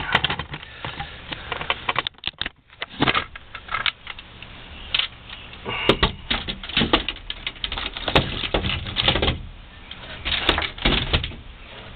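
Handling noise from a camera being taken off its mount and held close to the microphone: an irregular string of clicks, knocks and rustles, with a brief pause about two seconds in.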